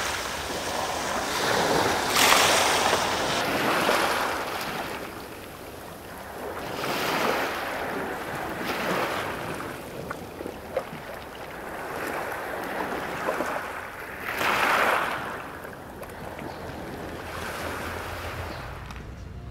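Waves washing in on a shore, the surf rising and falling in swells every two to three seconds.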